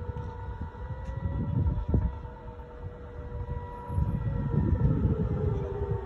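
Civil defense air-raid siren sounding a missile-attack warning: a held tone that begins to waver and slide lower about four seconds in. An uneven low rumble runs underneath.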